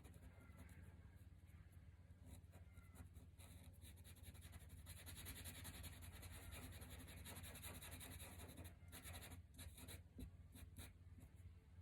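Faint scratching of a drawing tool on paper as an area is coloured in with quick back-and-forth strokes, a little louder in the middle.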